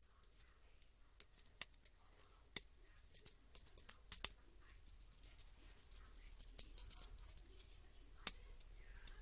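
Sharp, irregular plastic clicks and snaps from a laptop keyboard's scissor-switch key mechanisms and keycaps being pressed and worked by hand as the keyboard is taken apart. There is a cluster of clicks around three to four seconds in and a loud single click near the end.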